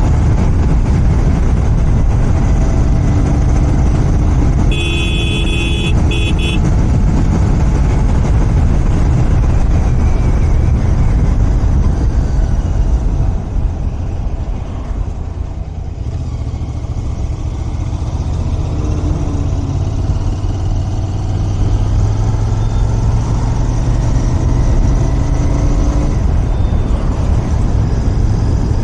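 Royal Enfield Continental GT 650's parallel-twin engine running on its stock exhaust while being ridden. A horn sounds briefly about five seconds in, and around halfway the engine eases off, then settles into a steadier low note.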